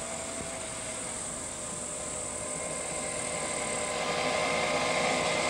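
Engine of a minibus approaching on a road: a steady mechanical whine that grows louder over the last couple of seconds as it comes nearer. A thin high tone over it stops about four seconds in.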